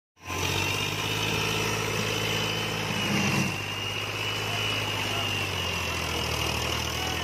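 Powertrac tractor's diesel engine running steadily while bogged in deep mud, with a brief rise in revs about three seconds in. A steady high whine sits over the engine.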